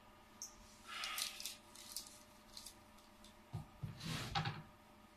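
Faint, scattered rustles and light clicks, with a couple of soft low knocks about three and a half to four and a half seconds in: handling noise around a phone filming a screen.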